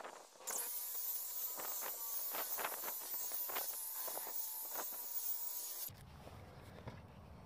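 Electric rotary buffer spinning a wool pad against a car's painted door panel: a steady hissing whine with irregular rubbing strokes as the pad is worked over the paint. It cuts off abruptly near the end, leaving a quieter low rumble.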